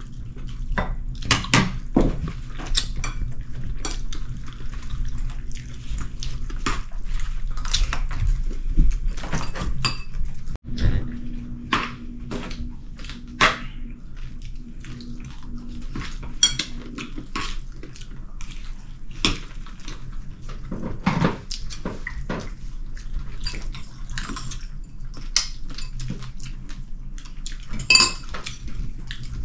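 Dishes, pots and cutlery clinking and knocking in irregular sharp clinks, over a low steady hum.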